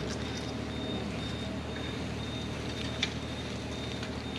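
An engine running steadily at an even speed, with a few light clicks and one sharp knock about three seconds in.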